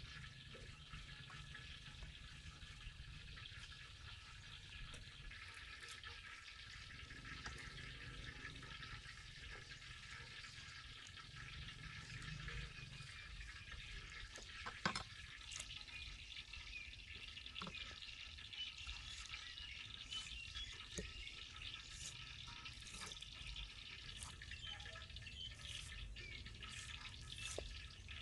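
Cleaver knocking on a wooden chopping board now and then while raw chicken drumsticks are cut, the sharpest knock about halfway through, with water splashing as the pieces are dropped and rinsed in a basin of water, over a faint steady background hiss.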